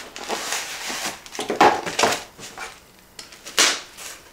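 Cardboard packaging being handled: a flameless-candle box opened and its white cardboard insert slid out, with rustling and a few short scrapes of card on card.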